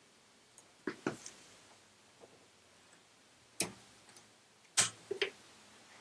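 A few sharp mechanical clicks: a pair about a second in, a single one midway, and a louder cluster of three near the end.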